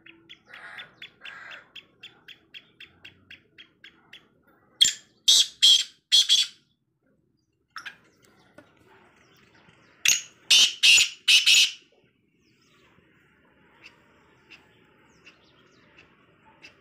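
Caged francolins (teetar) calling: two loud phrases of about four strong notes each, some five seconds apart, after a run of soft quick notes at about three a second.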